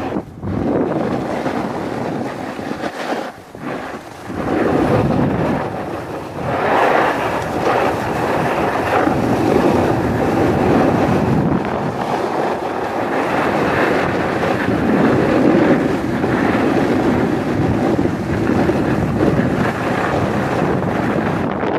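Wind buffeting the camera microphone while moving fast downhill on a ski slope: a loud rushing noise that swells and eases, with a short drop about three to four seconds in.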